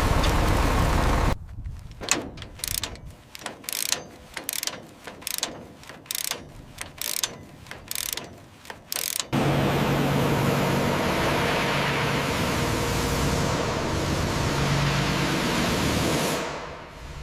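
A run of sharp mechanical clicks, about two a second, for several seconds. It gives way about nine seconds in to a steady low mechanical hum under a noise haze.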